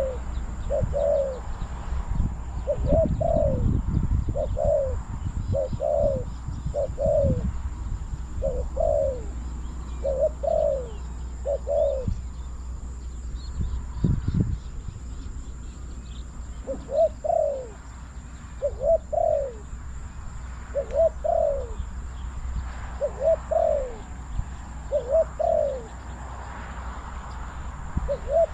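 Spotted dove cooing: short coos, often in pairs, each falling in pitch, repeated about once a second, with a pause of a few seconds about halfway through.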